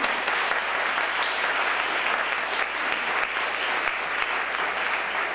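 Audience applauding, a dense, steady clapping, louder than the talk before it.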